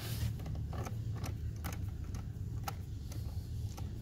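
Mounting nut being threaded by hand onto a stud of an accelerator pedal bracket: scattered small metallic clicks and scrapes at irregular intervals, over a steady low hum.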